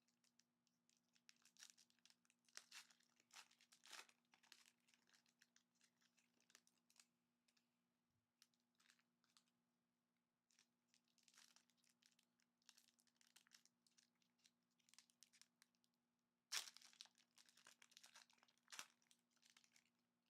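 Sealed trading card packaging being torn open and crinkled: irregular crackling and ripping of plastic wrapping, with the loudest tear near the end.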